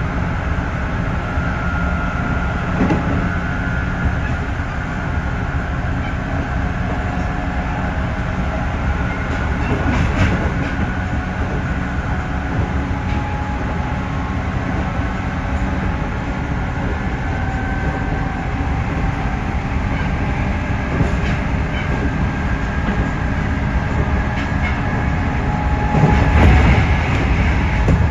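JR Central 311 series electric train running at speed, heard from inside the car: a steady rumble of wheels on rail with a faint, slowly shifting motor whine. There are occasional rail-joint knocks, and a louder rattling stretch near the end.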